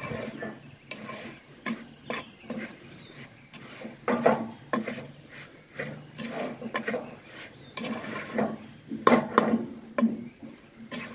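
Wooden spatula scraping and stirring against the inside of an aluminium pot as flour is stirred in it, a series of irregular rasping strokes.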